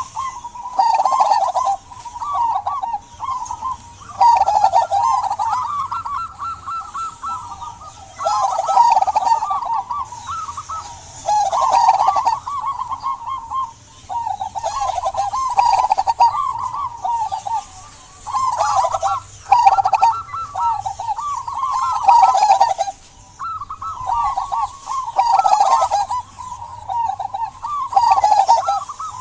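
Zebra dove (perkutut) cooing over and over, rapid trilled song phrases about a second or two long with short pauses between them.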